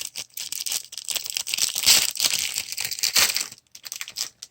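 A sports trading-card pack wrapper being torn open and crinkled in the hands: dense crackling that thins out about three and a half seconds in.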